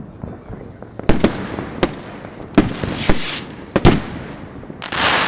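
New Year's Eve fireworks going off: about half a dozen sharp bangs at irregular intervals, with a hissing crackle about three seconds in and a longer, louder one near the end.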